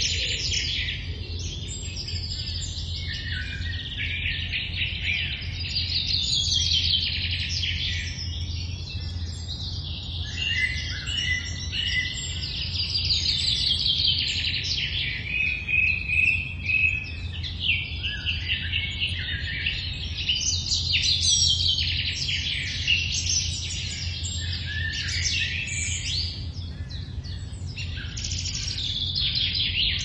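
Early-morning chorus of several songbirds singing over one another, with overlapping chirps and repeated fast trills. A steady low hum sits underneath.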